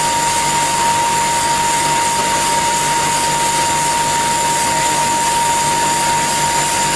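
Automatic pad printing machine for pen barrels running in production: a steady mechanical hiss with a constant high whine.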